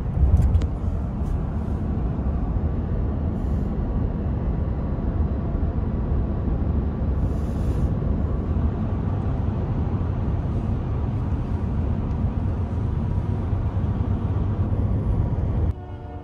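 Loud, steady rumble of road and wind noise in a vehicle moving at highway speed, cutting off suddenly near the end.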